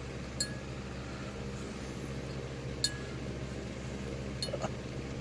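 Three light metallic clinks, spaced a second or two apart, from the metal buckle and tag on a Siberian husky puppy's collar as he shifts while chewing a treat, over a steady low background hum.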